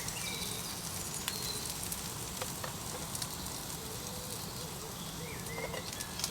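Homemade Spam slices frying in a little oil, a steady sizzle with a few faint crackles.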